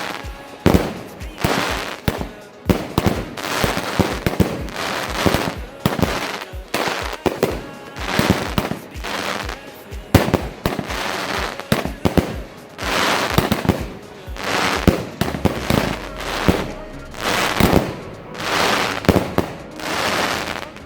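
Two Jorge New Generation 7 fireworks batteries firing at the same time: sharp launch shots and bursts with crackling effects, a new volley roughly every second.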